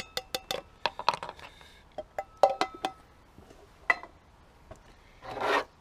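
Light metallic clinks and taps from an emptied tin can of engine-flush fluid and a plastic funnel at the oil filler, in quick runs of several a second with short ringing. A single tick follows, then a brief rustling scrape near the end.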